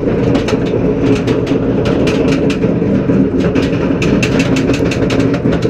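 SheiKra roller coaster's chain lift hauling the train up the lift hill: a steady mechanical drone with a rapid, continuous run of clicks.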